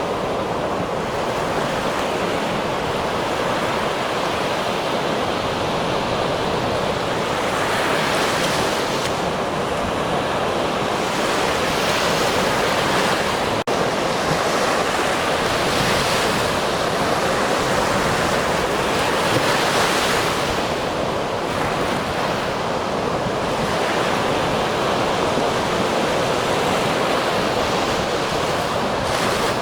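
Ocean surf: waves breaking and washing ashore in a continuous rush that swells every few seconds.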